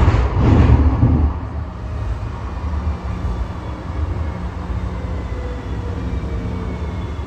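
Siemens S700 light rail car heard from inside while under way: a steady low rumble from the running gear with a faint whine from the traction motors. The noise is louder for the first second or so.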